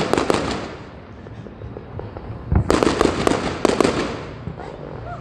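Aerial fireworks bursting overhead in rapid volleys of sharp crackling pops: one volley right at the start that fades, then another about two and a half seconds in that dies away before the end.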